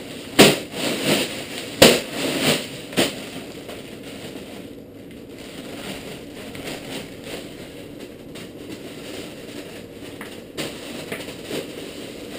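Ice cubes poured from a large plastic bag into a plastic bucket around a copper condenser coil, clattering and crunching. A few loud rattling spills come in the first three seconds, then quieter shifting and clinking of the ice.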